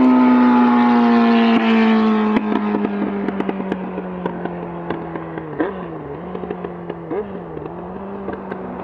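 Yamaha R1's inline-four engine through a handmade Delkevic racing exhaust as the bike rides away: a high engine note slowly dropping in pitch and fading. From about two seconds in, sharp pops and crackles come from the exhaust, and later the revs dip briefly twice.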